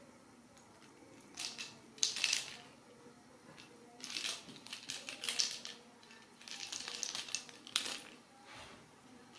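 Ragdoll kittens playing on a rug: short bursts of scratchy scrabbling and rustling, about half a dozen over several seconds.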